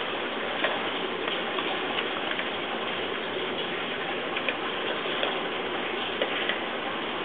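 A Labrador eating dry kibble off the floor: irregular crunches and small crisp clicks over a steady hiss.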